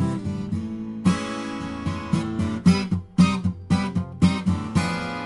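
Twelve-string acoustic guitar strummed in a rhythmic pattern, with a run of short, clipped chord strums in the middle.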